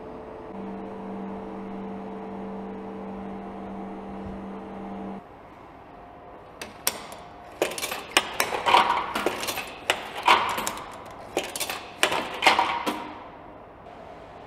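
A steady electrical hum that cuts off after about five seconds, then coins pushed one after another into a vending machine's coin slot, a quick run of sharp clicks and rattles as they drop through the coin mechanism.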